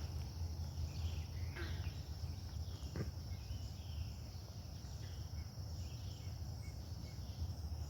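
Steady high-pitched insect chorus, with short chirping calls about once a second over a low rumble, and a single click about three seconds in.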